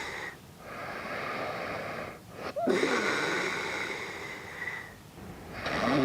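A man snoring in his sleep: a long noisy breath about every two and a half seconds, each with a thin whistling tone over it and a brief fluttering rise and fall in pitch where it starts.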